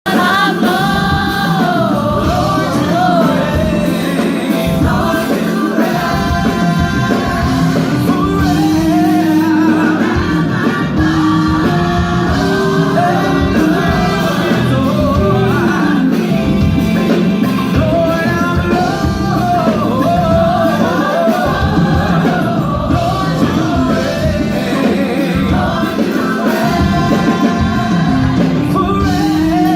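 Gospel vocal ensemble singing a song in harmony, several voices moving together over steady musical backing.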